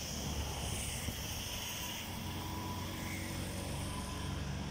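Steady low rumble and rushing of a swollen, fast-flowing flooded river, with a low engine-like hum running through it.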